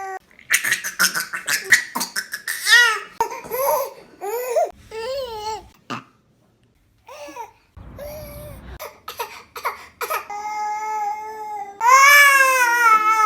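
A baby's vocal sounds: quick laughing bursts, then babbling squeals that bend up and down in pitch, a short pause, and a long high-pitched cry-like wail near the end.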